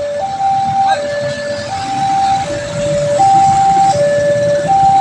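Railway level-crossing warning siren switching on suddenly and sounding a steady two-tone hi-lo wail, the two notes swapping about every three-quarters of a second. It signals an approaching train and the closing of the crossing barriers.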